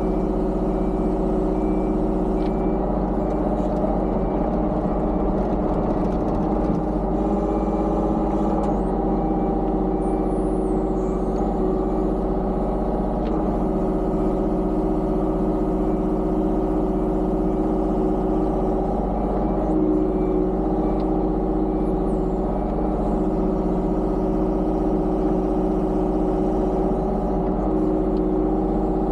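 Kubota KX033-4 mini excavator's three-cylinder diesel engine running steadily with little change in pitch while it grades dirt.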